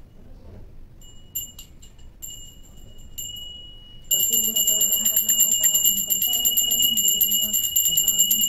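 Puja hand bell rung rapidly during aarti. It rings in short spells at first, then continuously and louder from about four seconds in.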